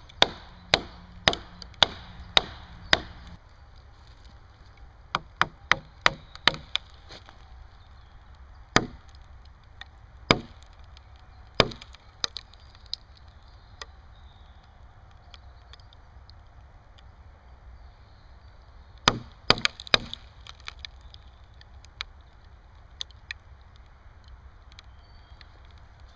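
Fiskars X7 hatchet chopping wood. Sharp single strikes come in a quick run of about five, roughly half a second apart, at the start. Then come scattered blows a second or more apart, and another tight cluster of several strikes about two-thirds of the way through.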